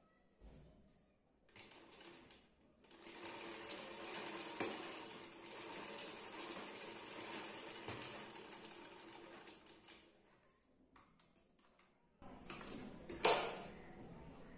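Sewing machine running steadily for several seconds as it stitches a pleat into blouse fabric, then stopping. Near the end there are a few short handling sounds and a sharp knock.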